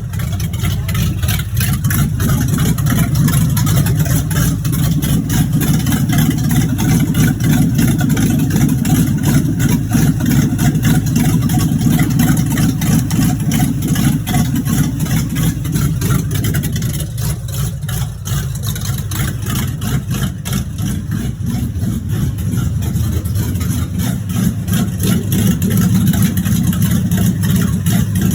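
1986 Monte Carlo SS's V8 engine running, with a rod knock in the bottom end. It drops off for a few seconds past the middle, then builds back up.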